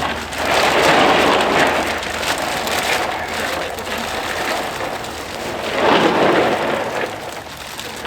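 A rushing, splashing noise like running or pouring water, loudest for the first few seconds and swelling again about six seconds in. A sharp knock comes right at the start.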